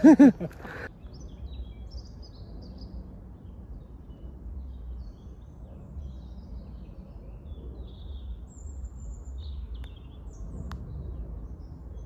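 Low, uneven rumble of wind buffeting the microphone, with a few faint, short bird chirps high above it.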